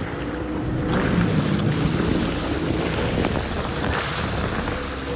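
Jet ski engine running on the water, getting louder about a second in, with wind buffeting the microphone.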